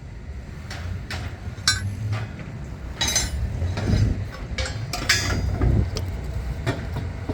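Metal clinking and knocking at irregular intervals, about eight sharp strikes, over a low steady rumble.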